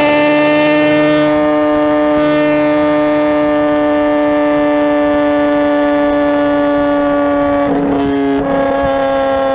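Motorcycle engine held at high revs at speed, one steady high-pitched note, with a brief break in the sound about 8 seconds in before it picks up again.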